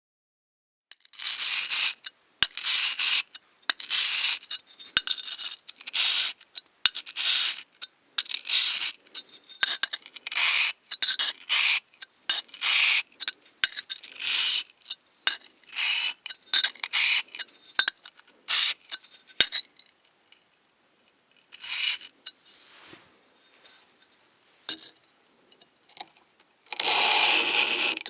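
Hard, gritty scraping strokes on the edge of a ruby-abrasive sharpening stone as the edge is abraded, about one stroke a second. They die down for a few seconds, then one longer scrape comes near the end.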